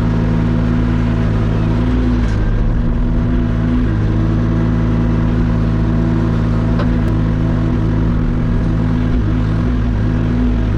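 Hauyee HY35C mini excavator's engine running steadily at a constant speed, with a few faint clicks.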